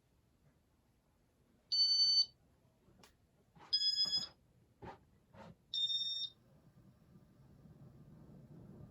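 Three short, high electronic beeps about two seconds apart from a Casablanca ceiling fan's electronic control, with a few light clicks between them as demo mode runs. Near the end a low hum begins to grow as the fan motor starts up.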